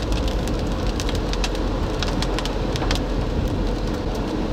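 Steady road and engine rumble of a moving vehicle, with raindrops hitting the car in irregular taps.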